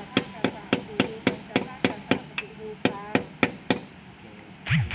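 Rapid, even hammer blows, about three to four a second, some with a short ring, stopping about three-quarters of the way through. Near the end comes one short, loud burst.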